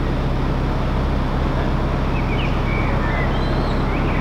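Narrowboat engine running steadily while cruising, a constant low drone under a hiss. A small bird chirps faintly a few times in the second half.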